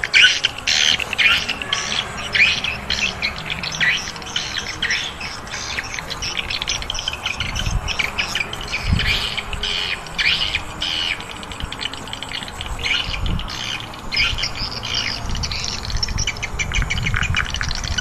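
A flock of small birds chirping and squawking continuously in quick, overlapping calls. A few low thuds come through about halfway and again near the end.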